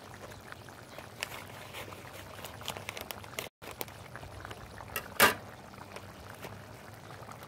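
Tomato-based chicken and enchilada sauce at a rolling boil in a 12-inch cast iron chicken fryer, bubbling steadily with many small pops. There is one louder click about five seconds in, and the sound cuts out for an instant a little before that.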